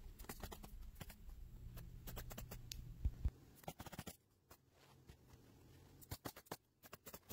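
Asphalt shingles being handled and set in place on a roof: faint, scattered taps, scrapes and rustles, with one sharper knock about three seconds in.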